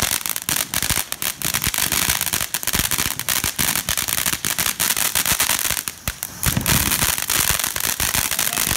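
Ground fireworks fountains hissing as they spray sparks, with a dense, continuous run of crackling pops.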